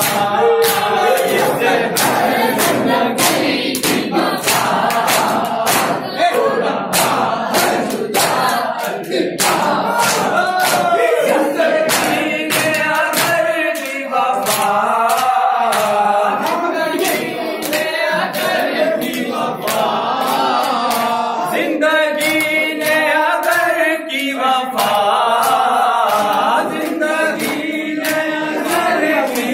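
Male voices chanting a noha, a Shia mourning lament, into microphones, with a group of men joining in, over a steady beat of sharp slaps at roughly two a second: hands striking bare chests in matam.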